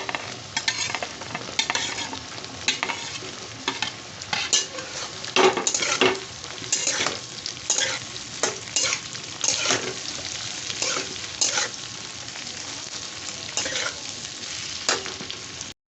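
Chopped onions sizzling in hot oil in a kadhai while a spatula stirs them, with frequent irregular scraping strokes against the pan over a steady frying hiss.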